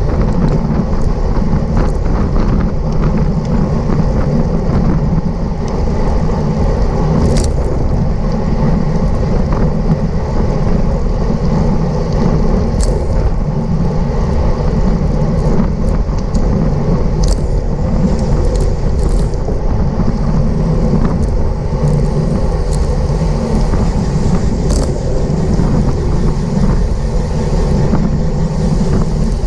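Steady wind rush and rolling noise of a road bicycle racing at speed in a pack, with a few sharp clicks now and then.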